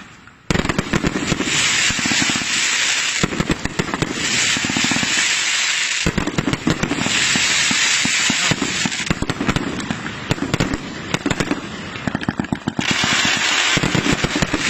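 Firework going off: a dense, continuous crackle of rapid sharp cracks over a hiss. It starts about half a second in and swells and eases in waves.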